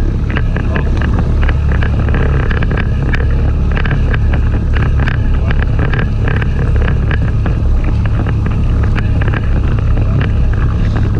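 Wind buffeting the camera microphone in a steady rumble, with choppy sea slapping and splashing against the hull of a small inflatable boat in many short sharp hits.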